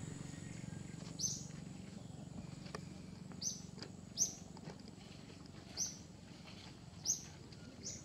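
A bird giving short, sharp, high-pitched chirps, six in all, spaced about a second or so apart, over a steady low hum and a faint steady high whine.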